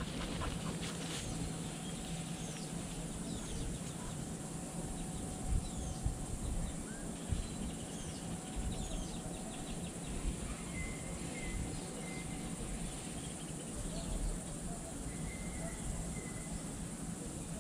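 Outdoor ambience: scattered short, high bird chirps over a low, uneven rumble, with a thin steady high note held for a second or two around the middle and again near the end.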